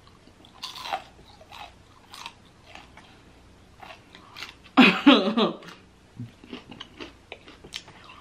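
Close-up chewing and biting of crispy fried chicken drumsticks, with many short, irregular crunches. A brief vocal sound from the eater comes about five seconds in and is the loudest thing heard.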